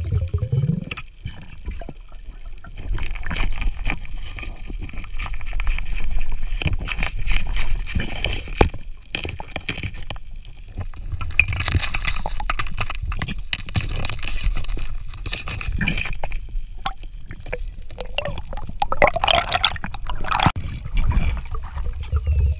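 Underwater water noise picked up by a submerged camera: gurgling and sloshing with a low rumble and many scattered clicks.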